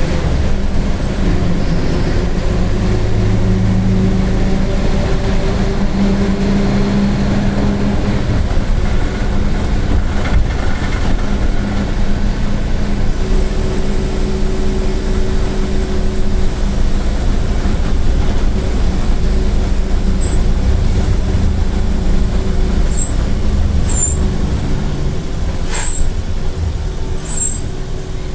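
Mercedes-Benz OF-1722M city bus under way, its diesel engine running and changing pitch as it pulls, over a steady drone from a noisy, growling differential. A few sharp clicks come near the end.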